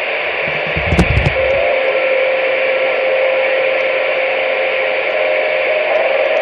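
CB radio receiver putting out loud, steady static hiss that cuts in suddenly. About a second and a half in, a steady whistle tone joins it and begins to waver near the end; there is a click and a low thump about a second in.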